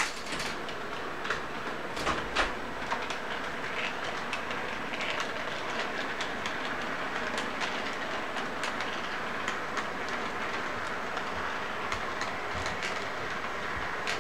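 Model train running along its track: a steady rolling rumble of wheels and motor, with sharp clicks in the first few seconds and lighter ticking afterwards.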